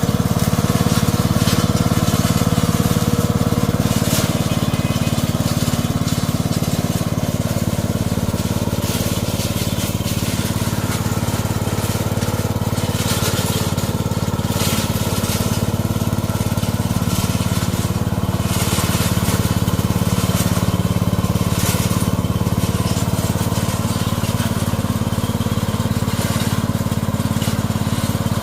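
Engine-driven mowing machine running steadily under load, with brief bursts of noise now and then as it cuts through weeds.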